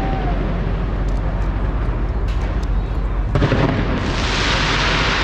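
Aerial fireworks bursting overhead in a continuous barrage of booms with sharp crackles; a fresh, louder salvo breaks about three seconds in.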